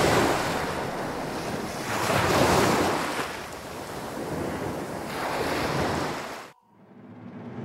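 Sea waves washing ashore in slow swells, with wind on the microphone. The sound cuts off suddenly about a second before the end.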